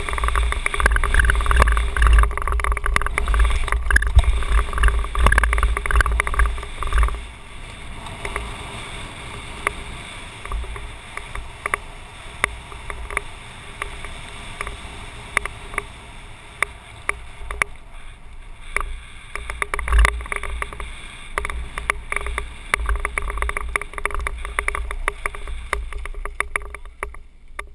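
A downhill mountain bike rolling over a gravel and dirt road, its tyres crunching and the bike rattling and ticking, under a heavy rumble of wind buffeting the helmet camera. It is loudest and roughest for the first seven seconds, then eases to a quieter roll with scattered clicks.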